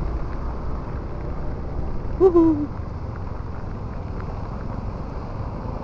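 Steady rumble of wind, rain and road noise while riding a motorcycle through heavy rain, sounding dull through an action-camera microphone that has taken in rainwater. A brief falling tone is heard about two seconds in.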